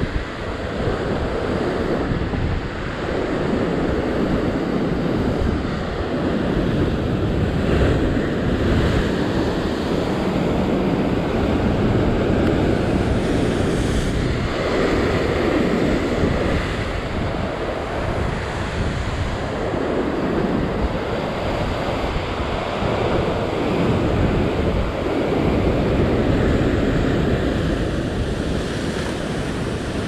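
Heavy ocean surf surging and breaking over coastal rocks, swelling and easing every few seconds, with wind buffeting the microphone.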